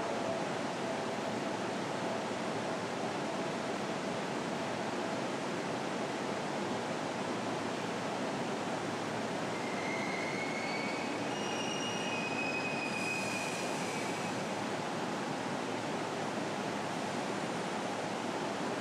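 Seibu Shinjuku Line limited express train pulling slowly into a stub-end terminus platform: a steady rumble of wheels and running gear. High squeals come in about ten seconds in as it slows, with a short hiss near thirteen seconds.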